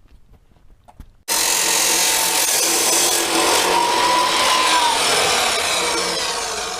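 A handheld power tool starts suddenly about a second in and runs steadily, cutting into a part. It is loud and harsh, with a faint whine wavering in pitch part-way through.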